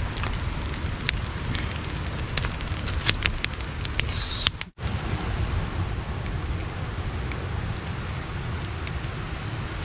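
Open wood fire crackling, with many sharp pops scattered over a steady low rumble; the sound briefly cuts out about halfway through.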